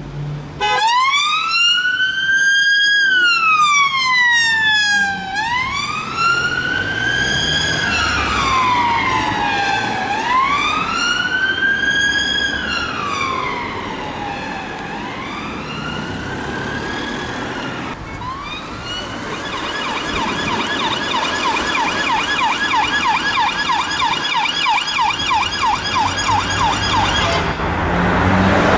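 Emergency vehicle siren, most likely a UK police car's, on a slow wail that rises and falls every few seconds and fades off after about a quarter of a minute. It then switches to a fast yelp several times a second, with road noise underneath.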